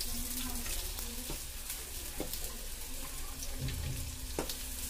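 Chopped green chilli, capsicum and beetroot sizzling lightly in oil in a metal kadhai as boiled noodles are added, with a few soft knocks, the sharpest about four and a half seconds in.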